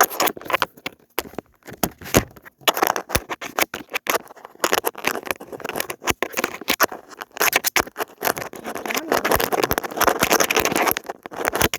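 Close handling noise: a dense run of scraping, rustling and sharp knocks and taps right at the microphone, busiest in the second half.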